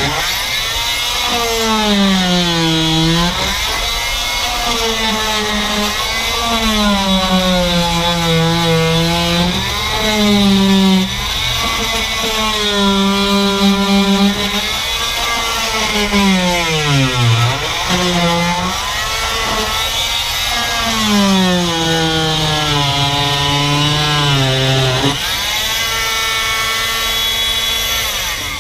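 Corded oscillating multi-tool with a scraper blade, scraping old carpet off a fibreglass boat deck. Its motor runs continuously, the pitch falling and rising again every few seconds under the changing load. It changes tone for the last few seconds and then stops.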